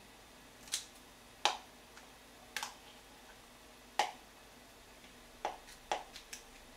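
Kitchen scissors snipping napa cabbage kimchi in a bowl, cutting the big pieces smaller: about six sharp snips at uneven spacing, roughly one a second.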